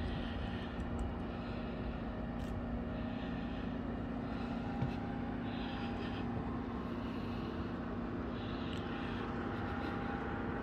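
Steady outdoor city background noise: a low rumble with a constant machine hum underneath.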